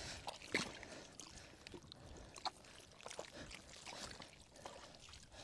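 Faint wet splashing and squelching of hands working in shallow muddy water and soft mud, in scattered small bursts.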